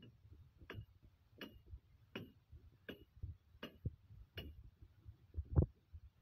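Six evenly spaced sharp ticks, a little under one a second, over soft low thumps, with one louder dull thump near the end.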